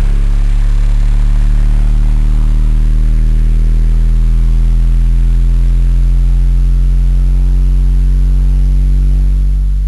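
Car-audio subwoofer system playing one sustained, very loud low bass note, heard from inside the vehicle's cab, with a buzzing, distorted edge from strong overtones. The note holds steady and begins to fade right at the end.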